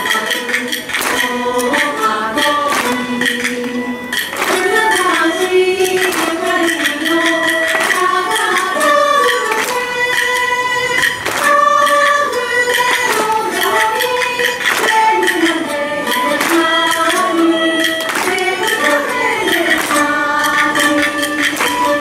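Minshingaku (Ming-Qing style Chinese music) ensemble: a female voice sings a melody over plucked round-bodied lutes, with sharp percussion strokes.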